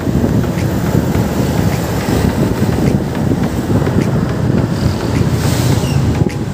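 Wind rushing over the microphone of a motorcycle being ridden, mixed with engine and road noise, steady throughout.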